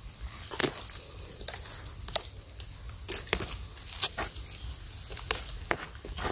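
Dry bamboo stalks and leaves rustling and crackling as young bamboo shoots are pulled and snapped off by hand, with scattered sharp cracks throughout.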